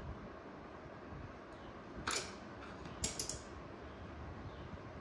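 A sharp click about two seconds in, then a quick cluster of three clicks about a second later, over faint room noise. These are mechanical switching clicks as power is switched back on to the V-Guard stabilizer and it starts up.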